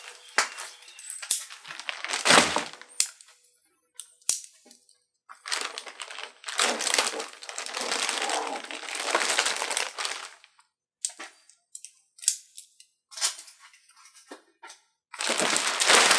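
Clear plastic bag crinkling and rustling as a new rubber door seal is pulled out of it, in two long stretches. Scattered sharp clicks and taps from handling come before and between them.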